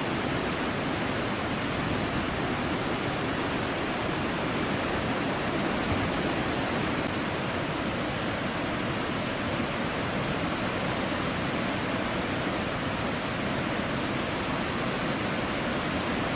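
Steady, unbroken rushing of a huge volume of floodwater pouring through a dam's open spillway gates and churning in the river below, a release of around 190,000 cusecs.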